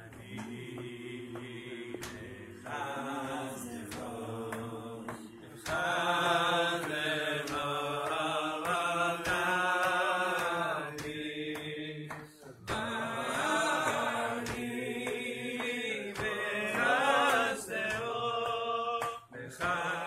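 Slow chant-like singing: a voice holds long notes on a slow melody over a steady low drone.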